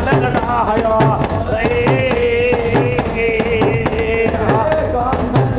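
Men singing a devotional bhajan, the melody held and wavering, over a fast, even beat of sharp clicks from hand-held percussion.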